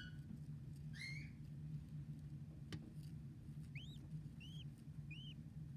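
Baby budgerigars chirping: one call about a second in, then three short, evenly spaced chirps that rise and fall, over a steady low hum. A single sharp click comes just under three seconds in.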